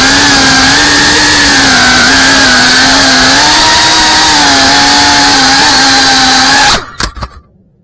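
FPV quadcopter's electric motors and propellers buzzing loudly, recorded on the drone's own camera, the pitch wavering with the throttle. Near the end the buzz cuts off suddenly as the motors stop, followed by two or three knocks as the quad comes down on the ground.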